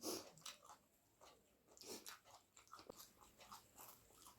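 Faint chewing: irregular soft, wet clicks and crackles of a person eating, with one louder click at the start.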